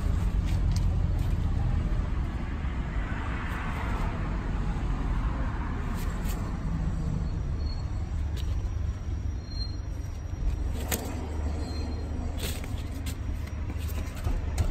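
Steady low rumble of a motor vehicle, with a broad swell of noise about three to five seconds in. A few sharp knocks come near the middle and toward the end.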